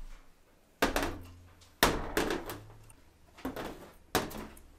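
Glass mason jars full of eggs set down one after another on a countertop: four sharp knocks about a second apart, the third softer.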